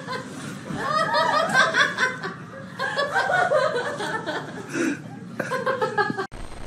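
A person laughing hard in repeated short bursts, cut off suddenly near the end.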